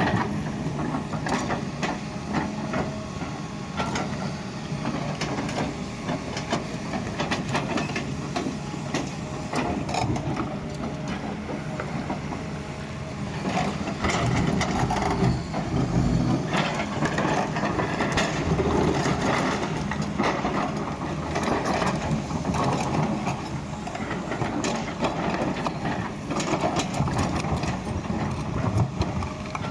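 Doosan excavator digging: its diesel engine runs steadily under load while the bucket and linkage clank and knock, a little louder for several seconds past the middle.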